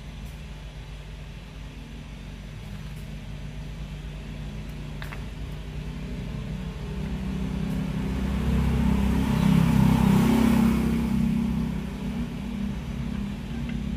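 A motor vehicle's engine in the background, a low drone that swells to its loudest about ten seconds in and then fades.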